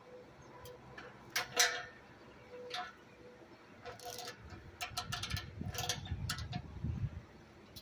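Light clicks and knocks of metal parts being handled on a scrap air compressor, scattered at first, then several in quick succession in the middle, with a low rumble of handling noise from about halfway.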